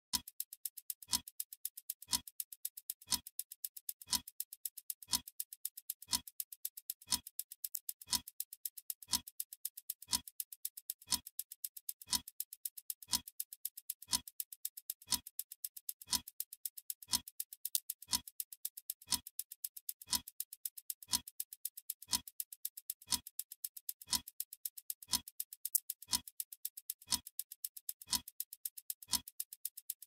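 Clock ticking sound effect: a steady, even tick about once a second, each with a deeper body, and lighter, higher ticks in quick succession between them.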